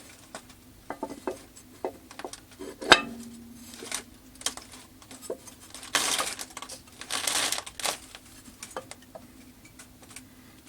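Metal parts and tools clinking and knocking on a workbench, with one sharp metallic knock that rings briefly about three seconds in and two short scraping rasps later on.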